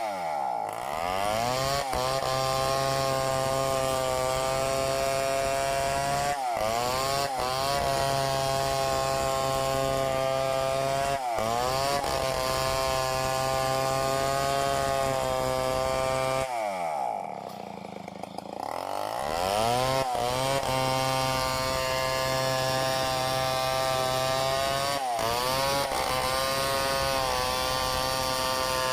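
Two-stroke chainsaw running at high revs through wood. Its engine note dips and recovers several times. About two-thirds of the way through, the note falls away for a couple of seconds before revving back up.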